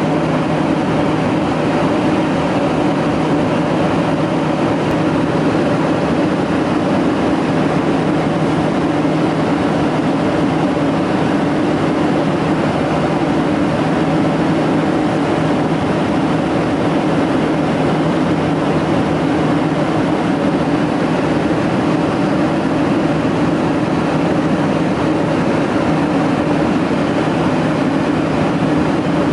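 Steady cabin noise of a Boeing 767 airliner at cruise: an even rush of airflow with a constant low engine hum.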